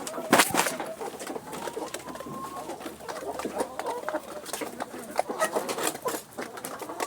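Chickens in a coop calling softly in low, wavering tones while feeding, among many short clicks and knocks, with a sharp knock about half a second in.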